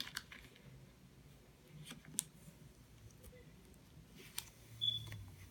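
Faint, scattered ticks and crinkles of adhesive vinyl and its paper backing being handled and pressed down by hand, with a short high squeak near the end.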